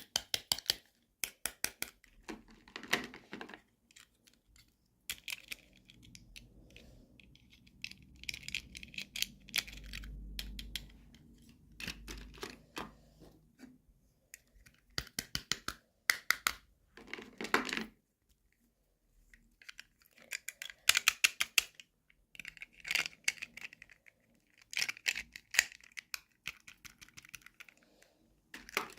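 Hands opening toy packaging: irregular clicks and taps with crinkling and short tearing sounds, coming in bursts with brief pauses.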